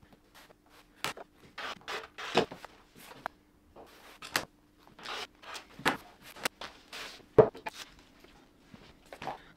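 Fabric rustling and swishing as it is smoothed and slid by hand across a cutting mat, in many short strokes, with several knocks, the loudest about seven seconds in.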